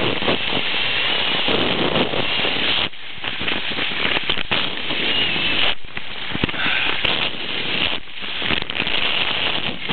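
Wind buffeting the microphone, a steady rushing hiss with crackle that briefly drops away about three, six and eight seconds in.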